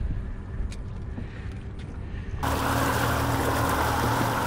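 Low wind rumble with a few faint clicks, then an abrupt cut about halfway in to a boat's engine running steadily under a wash of wind and water noise.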